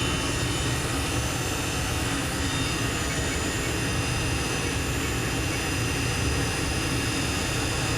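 Citizen L20 Swiss-type CNC lathe's main spindle spinning steadily at 5,500 RPM, a steady whine of several high tones over a low running hum.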